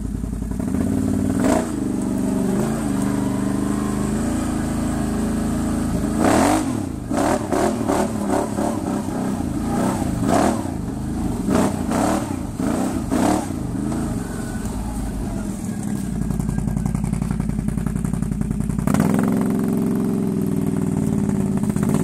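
Can-Am Outlander 800R Max's Rotax V-twin engine through an HMF slip-on exhaust, revving up and easing off as the ATV is ridden. A run of about eight sharp cracks comes between roughly six and fourteen seconds in.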